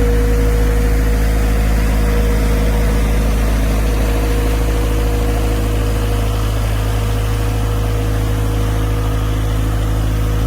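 A machine running steadily with a deep, even hum and a constant whining tone above it.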